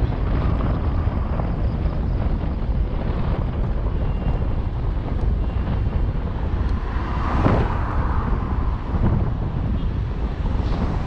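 Wind buffeting the microphone of a camera riding along on a moving bicycle: a steady, loud low rumble, with a louder swell about seven seconds in.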